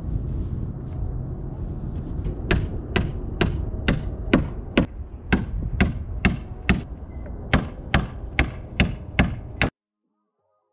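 Hand hammer driving nails into a new pine car siding board on an old wooden barn wall: a steady run of sharp strikes, about two or three a second, over a low background rumble. The strikes cut off suddenly near the end.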